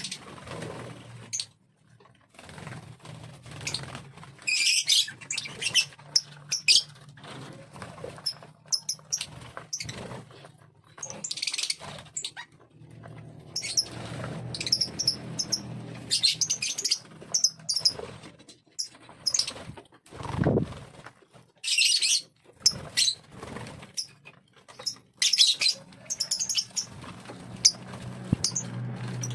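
Lovebird giving shrill chirps in short bursts every few seconds, among scattered sharp clicks, over a low steady hum.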